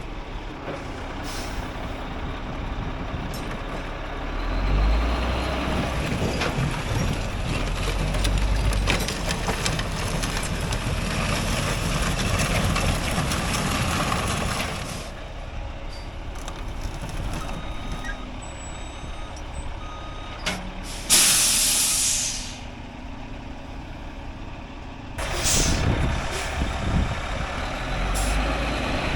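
A 6x6 rollback tow truck manoeuvring: its engine runs throughout, louder in the first half, with a few short reverse-alarm beeps. About 21 seconds in, the air brakes give a loud hiss lasting about a second and a half.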